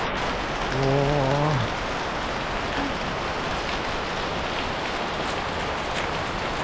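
Heavy tropical rain pouring down steadily. About a second in, a man gives a short wordless vocal sound.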